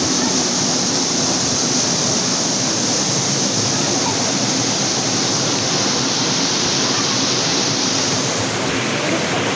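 Waterfall pouring down a rock face into a shallow stony pool: a loud, steady rush of falling water.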